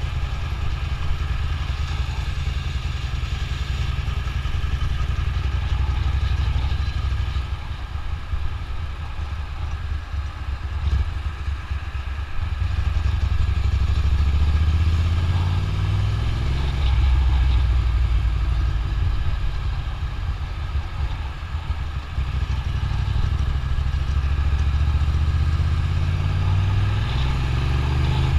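Ducati motorcycle engine running under way at road speed, its pitch climbing about halfway through and again near the end as the bike speeds up.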